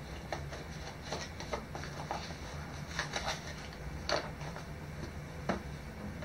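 Light clicks and knocks of a plastic drone and remote controller being handled in a foam-lined case. The sharpest knock comes about four seconds in. A steady low hum runs underneath.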